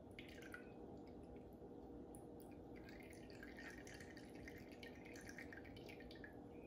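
Margarita dripping and trickling in a thin stream into a cocktail glass, faint: a brief spell of drips at the start, then a longer run of drips from about three seconds in.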